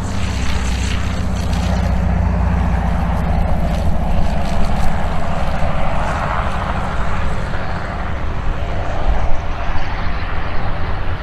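Light single-engine aircraft's engine and propeller drone steadily as it passes low and lands on grass, with a low thump about nine seconds in.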